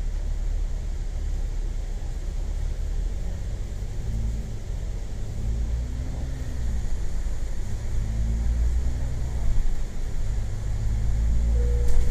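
Double-decker bus heard from inside while riding: a steady low rumble of the diesel engine and road. From about four seconds in, the engine note rises and falls several times.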